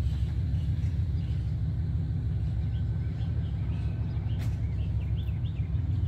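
A steady low rumble, with faint short bird chirps in the second half and one sharp click a little past the middle.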